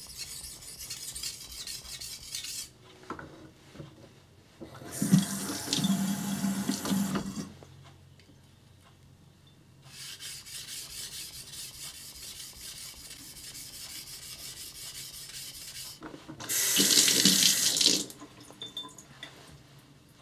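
Yanagiba blade stroked back and forth on a small natural blue whetstone under light pressure, a fine steady rasping. It gives way twice to a few seconds of louder running water, a tap running into the sink, about five seconds in and again near the end.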